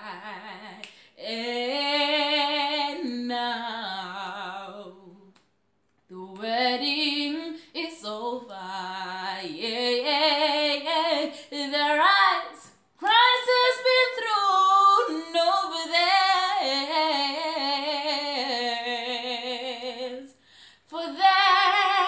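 A woman singing solo and unaccompanied, with a wavering vibrato on held notes. She sings in phrases with brief pauses between them, in a small room.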